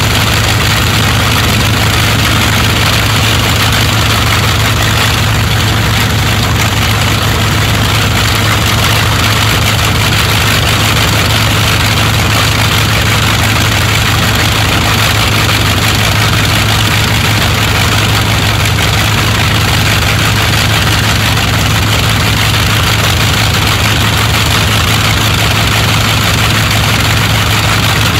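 Rolls-Royce Merlin V12 and Bristol Hercules sleeve-valve radial aero engines running at a steady idle on their trailer test rigs, propellers turning, with a deep steady hum that does not change.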